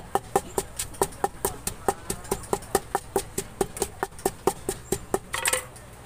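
Wooden pestle pounding in a large clay mortar, steady knocks at about four or five strokes a second, bruising the ingredients for som tam (papaya salad). The pounding stops a little before the end with a brief scrape.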